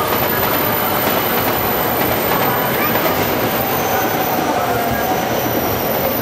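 A train running past: steady, loud rail and wheel noise with a faint thin squeal through it.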